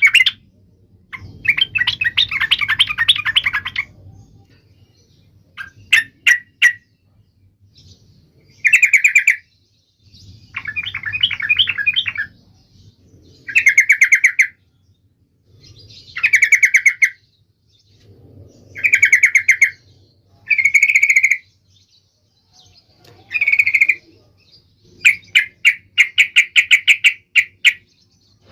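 Yellow-vented bulbul (trucukan) singing: about ten short, rapid, bubbling phrases, each about a second long, repeated every two to three seconds.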